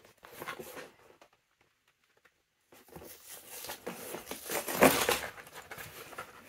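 A cardboard LEGO set box being handled and torn open, the card flaps scraping and the plastic-bagged bricks inside shifting and rustling. A short burst of handling, a dead gap, then a longer stretch of scraping and rustling with a sharper knock in the middle of it.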